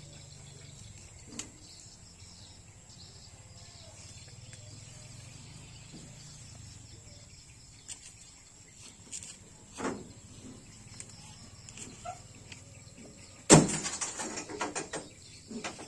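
Cattle grazing on leafy plants against a steady high insect drone, with scattered soft crunches of tearing and chewing. Near the end a sharp crack is followed by about two seconds of crackling rustle.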